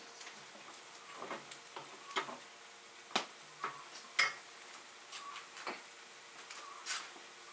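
Scattered light clicks and knocks of kitchen utensils, pots and dishes being handled, irregular and sparse. The loudest are two sharp knocks about three and four seconds in.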